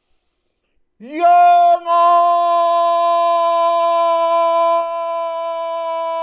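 A man's long, loud call through cupped hands: one held vocal note that starts about a second in with a quick upward slide and a brief break. It then holds steady, sinking slightly in pitch.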